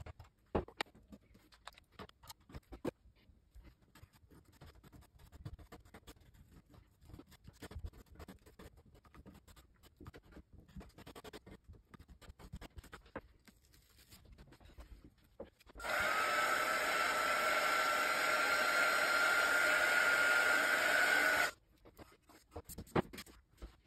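Faint scraping and rubbing of chalk paste being spread and smoothed over a stencil transfer on a chalkboard. About 16 seconds in, a loud, steady whirring with a high whine starts, runs for about five seconds and cuts off suddenly.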